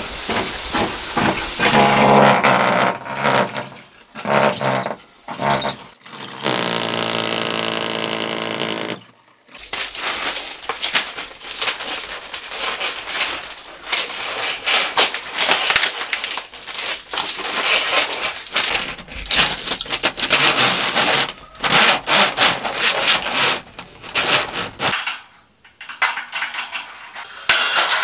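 Building work: a power tool runs steadily for about three seconds, then a long stretch of repeated scraping and rubbing strokes with knocks from hand work.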